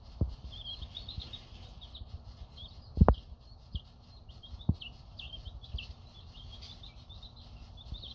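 Young poultry chicks cheeping continually in short, high peeps. A few low thumps are mixed in, the loudest about three seconds in.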